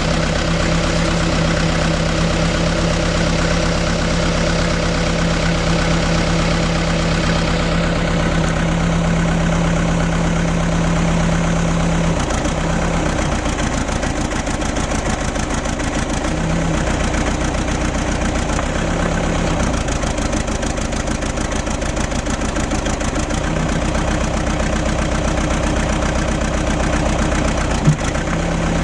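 Case 580 Super E backhoe's diesel engine idling steadily, with one short sharp knock near the end.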